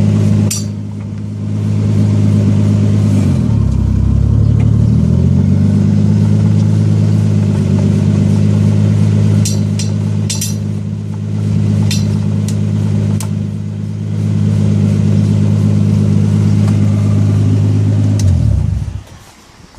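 Car engine idling steadily; its speed sags briefly about four seconds in and picks back up. A few sharp clicks come through the middle, and the engine shuts off near the end.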